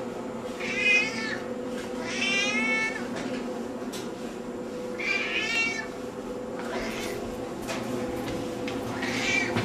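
Long-haired grey-and-white domestic cat meowing repeatedly: about four clear, drawn-out meows, the longest about a second, with a few fainter ones between. A steady low hum runs underneath.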